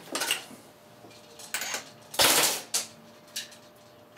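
G&P M16A3 electric airsoft rifle with a rebuilt gearbox (new gears, bearings and piston) firing several short bursts on an 8.4-volt battery, the loudest burst a little past the middle.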